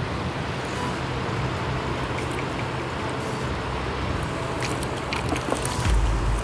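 Steady wash of surf and wind at the shore, with live mullet flapping and splashing in a water-filled plastic bucket; a few sharp slaps of fish on water come between about four and a half and five and a half seconds in, and a low thump comes near the end.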